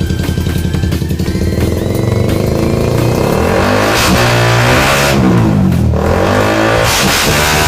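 Suzuki Raider R150 motorcycle engine through an aftermarket power pipe exhaust, running at first and then revved up and down repeatedly from about three seconds in.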